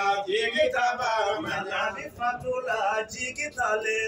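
A man singing a chant-like song, phrase after phrase with short breaks between.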